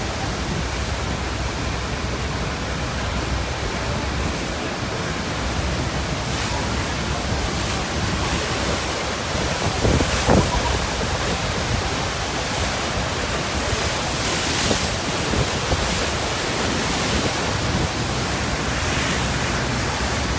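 Niagara Falls pouring into the churning river at its base: a steady, loud rush of water. Wind hits the microphone in gusts, strongest about ten seconds in.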